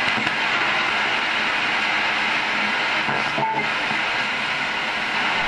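Static hiss from a Contact System ITC setup, where sweeping ghost-box radios and a white-noise source are mixed into one output. The hiss holds steady, with a short tone blip about three and a half seconds in.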